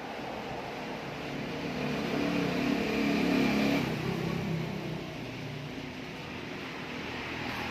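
A motor vehicle passing by: its engine swells to a peak a few seconds in and then fades, over a steady background hum.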